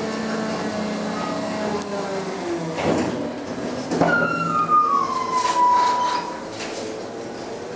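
Packing mechanism of a MacDonald Johnston side-loader garbage truck running, heard from inside its steel body. There is a knock about three seconds in and another about four seconds in, then a metal squeal that falls in pitch over about two seconds.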